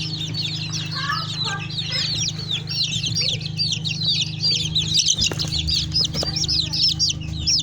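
A flock of four-week-old native Nigerian chicks peeping continuously, many overlapping high-pitched cheeps each second, over a steady low hum.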